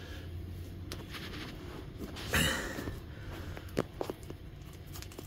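Steel tire pry bars clicking and knocking against a mower wheel rim while a stiff, cold tire bead is levered off, with one louder short rasp about two and a half seconds in.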